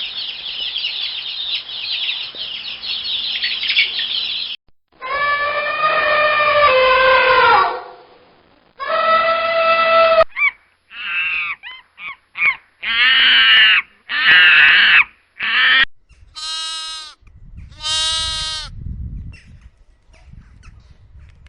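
A run of animal-sound clips. First comes a few seconds of high, dense bird twittering. Then a series of loud pitched calls and honks like fowl or geese, ending with two shrill calls.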